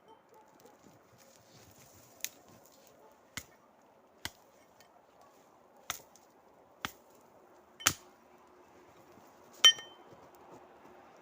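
Hatchet striking wood, seven sharp chops spaced about a second apart, the last and loudest with a brief metallic ring.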